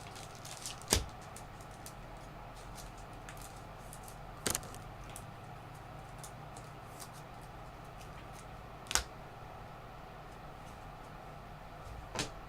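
Trading cards being handled and flipped through: faint light ticks with three sharp taps, about four seconds apart, over a steady low hum.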